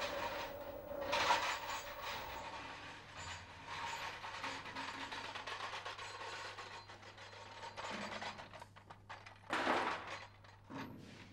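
Metal clanking and ratchet-like clicking as aircraft rockets and their mounting hardware are handled and fitted, with a louder scrape about a second in and another near the end.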